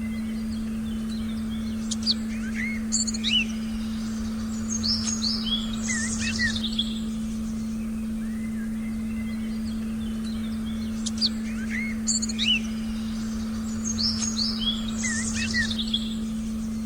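Forest birdsong, with several birds chirping and whistling in two clusters of calls, the same run of calls coming round again, over a steady low tone.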